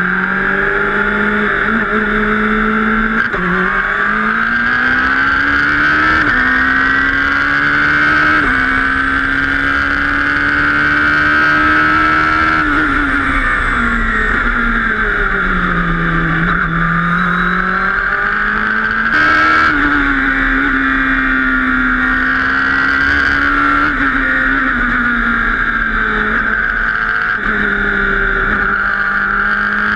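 Radical SR3 RS prototype race car's engine heard from the open cockpit, accelerating hard away from the pit lane with quick upshifts, each dropping the pitch before it climbs again. Later it eases off and falls in pitch under braking, with a sudden jump in pitch on a downshift, then pulls through the corners again.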